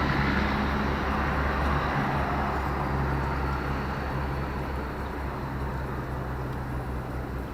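Motor vehicle noise: a steady engine hum under a wash of traffic sound that slowly fades.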